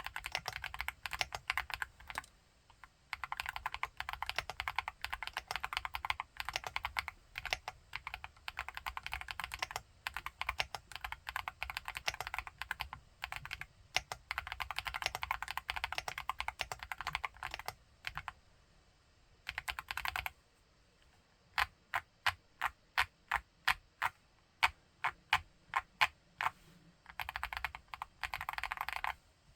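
Typing on an Akko SPR75 spring-mount mechanical keyboard with MMD Princess tactile switches: fast runs of keystrokes broken by short pauses. In the last third, separate single key presses come about two a second before the fast typing resumes.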